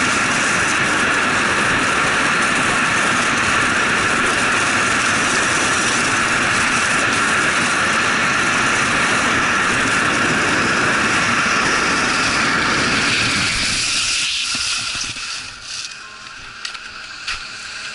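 Steady rushing wind noise on a Sony Action Cam's microphone during a fast downhill ski run, mixed with the hiss of skis on packed snow. The rush drops away sharply near the end.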